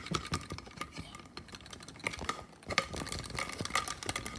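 Plastic toy figures handled close to the microphone: a quick, irregular run of small clicks, taps and rubbing knocks.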